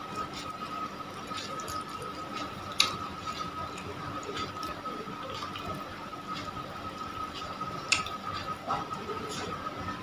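Close-miked wet eating sounds: a man chewing and slurping noodles and biting into a raw fish, a run of sticky smacks and clicks. Two sharper clicks come about three seconds in and near eight seconds.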